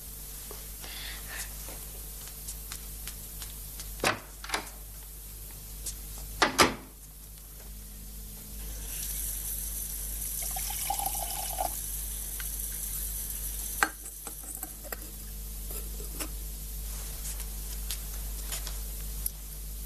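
Household sounds. A few sharp knocks around four and six and a half seconds in are the loudest events. Then water hisses for about five seconds from about nine seconds in, with faint clinks afterwards.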